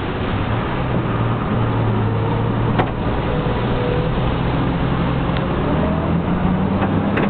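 An engine drones steadily under a loud rushing noise, with two brief clicks, one about three seconds in and one near the end.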